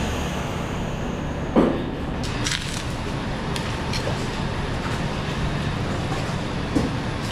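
Steady hum of machinery in a meat-cutting room, with a sharp knock about a second and a half in, a smaller one near the end, and a few faint clicks from meat and tools being handled on the cutting table.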